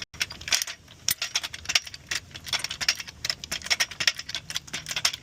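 Rapid, irregular metallic clicking and ticking from a second-hand tool being worked on the car, a noise the owner says this tool always makes.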